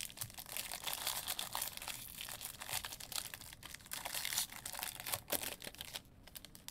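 Wrapper of a Topps baseball card jumbo pack crinkling and tearing as it is opened by hand: a dense run of crackles that thins out near the end.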